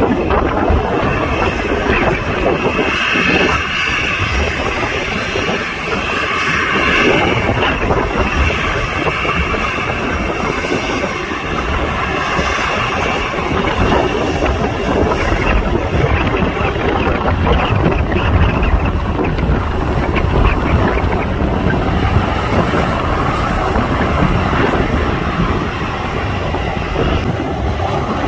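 Airliner engine noise: a steady rush with a high whine in the first several seconds, and wind rumbling on the microphone.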